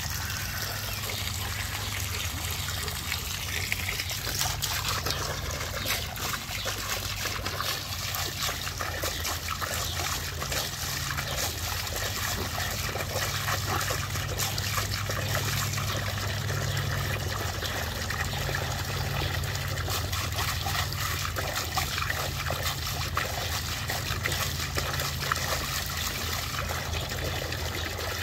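Garden hose jet pouring steadily into a shallow plastic pool of water, with irregular small splashes as a dog bites and laps at the stream.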